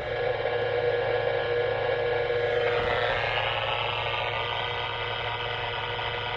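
Electrical noise from a misbehaving power line heard through a Yaesu FT-857D's speaker on the 10-metre band: a steady, loud buzzing hiss with a low hum under it, which shifts higher in pitch about three seconds in.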